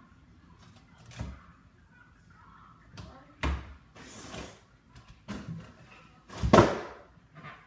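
Kitchen cabinet door being opened and shut and glassware handled at the counter: a few separate knocks and clunks, the loudest about two-thirds of the way through.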